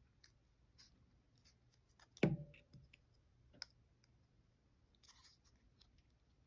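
Quiet hand-handling of a Spyderco Para 3 folding knife: a few small scattered clicks and a soft scrape as the blade and handle parts are worked to seat a part. The loudest click comes a little over two seconds in.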